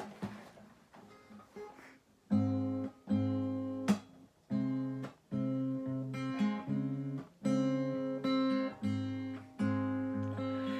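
Acoustic guitar strumming the intro chords, a chord struck every half second to a second. The first two seconds hold only faint small noises before the playing starts.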